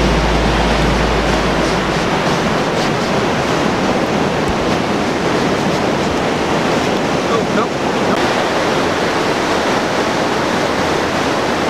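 Ocean surf breaking and washing up a sandy beach: a steady, loud rushing.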